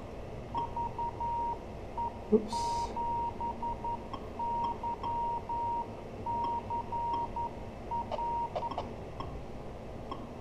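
Amateur radio repeater's Morse-code identifier: a steady tone of about 1 kHz keyed in dots and dashes that read as the call sign VE7YCR, heard over radio hiss. A few sharp clicks come near the end.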